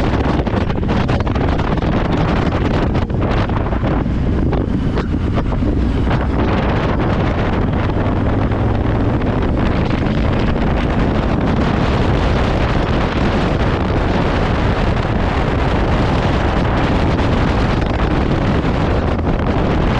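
Wind rushing over the microphone of a camera mounted on a Honda motorcycle, with the bike's engine and road noise running steadily underneath at city riding speed.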